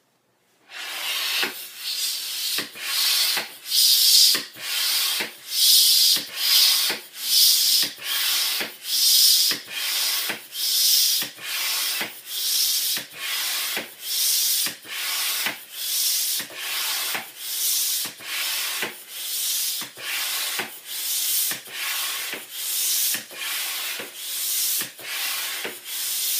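Hand balloon pump worked in steady strokes, a hiss of air a little more than once a second, inflating a large balloon. It starts about a second in.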